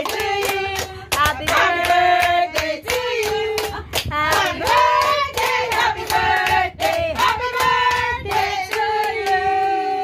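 A small group singing together with steady hand-clapping in time; several voices hold long sung notes over the claps.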